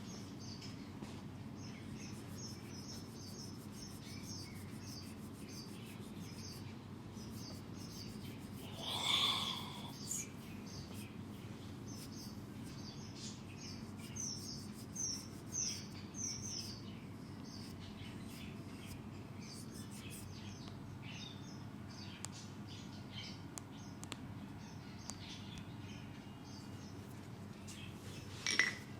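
Small birds chirping over and over over a steady low hum, with one louder call about nine seconds in. A light clink comes near the end.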